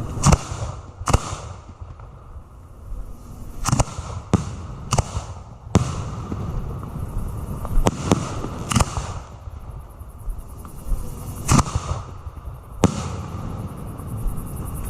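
Fireworks display heard close to the firing line: about ten sharp booms from aerial shells at irregular intervals, some in quick pairs, over a steady low rumble.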